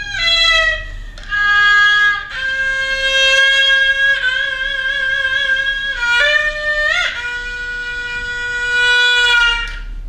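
Solo haegeum, the Korean two-string fiddle, playing slow long-held notes of sanjo in the jinyangjo movement. The notes waver with vibrato and slide between pitches, with a rising bend about seven seconds in and then a fall to a long held low note.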